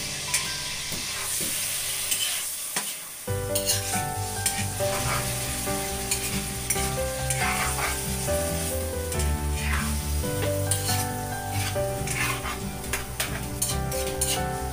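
Chicken liver sizzling in a wok while a metal spatula stirs it, scraping and clicking against the pan. Background music with a melody comes in about three seconds in.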